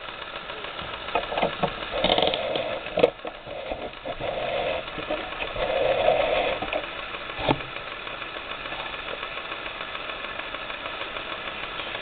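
Homemade alcohol jet stove burning steadily under a steel cup of water, a continuous hiss with a light, rapid ticking that swells for a few seconds twice. A couple of sharp knocks, about three and seven seconds in.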